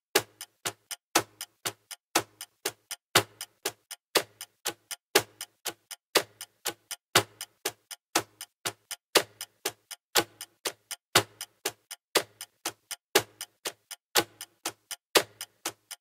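Background music made of sharp ticks and clicks in a steady rhythm, about five a second, with a louder tick about once a second.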